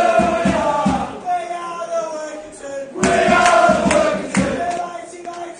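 A crowd of male supporters chanting a terrace song in unison, with a rhythmic beat kept underneath; one loud phrase at the start, a quieter stretch, then another loud phrase about three seconds in.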